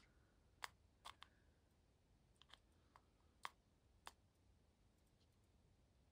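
Faint, irregular small clicks of a diamond painting pen picking up resin drills and pressing them onto the sticker, about nine in the first four seconds.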